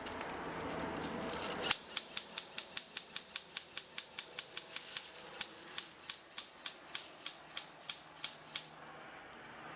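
Airsoft gun shooting semi-automatic in a fast, even run of sharp clicking shots, about three and a half a second, for about seven seconds before stopping. It is preceded by a short burst of rustling that cuts off suddenly.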